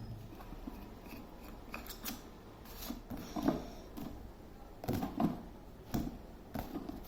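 Irregular sharp clicks, snips and short scrapes of hand work on a table fan during its service, with no motor running.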